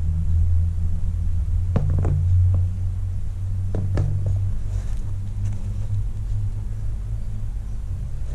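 A steady low rumble with a few sharp knocks: sneakers' rubber soles set down on a concrete floor, about two seconds in and again about four seconds in.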